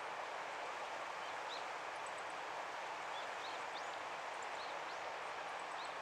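Steady outdoor background hiss with several faint, thin, rising bird chirps scattered through it, more of them in the second half.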